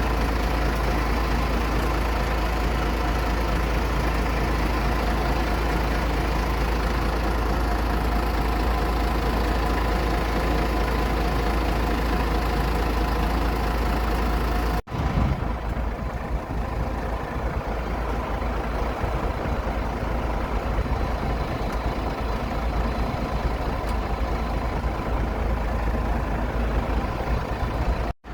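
Steady engine noise with a deep low rumble and several steady whining tones. It breaks off sharply about halfway through, then carries on with less hiss at the top.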